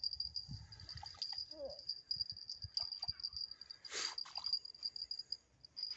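A steady, high-pitched insect chirring, as of a cricket or bush-cricket in the grass, with scattered knocks and rustles of handling, the loudest about four seconds in.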